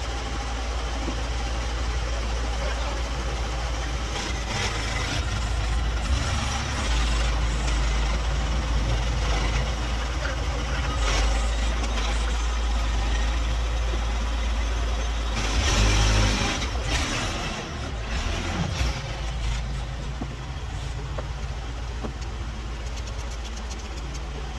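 Telehandler's diesel engine running steadily with a deep rumble as it loads the flatbed, with a louder rush of noise for a second or so about two-thirds of the way in.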